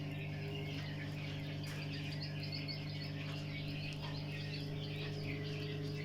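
Samsung washing machine running its spin-and-dry program with a steady hum and no grinding or rubbing noise, the sign that the repair has cured the strange spin noise.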